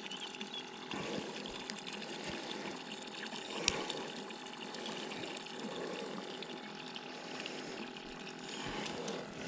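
A boat's pump sending a steady stream of water out over the side, splashing into the river, with a faint steady pump hum. A few light clicks, the sharpest about four seconds in.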